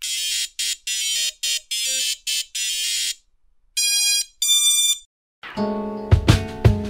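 Intro sound effects: a rapid run of bright, high-pitched electronic beeping pulses for about three seconds, then two ringing chime tones. About five and a half seconds in, music with a steady drum beat starts.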